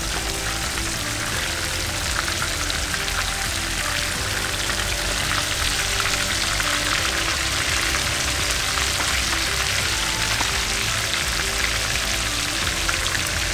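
Panko-breaded fish fillets frying in a skillet of hot oil: a steady loud sizzle with fine crackling. Background music plays underneath.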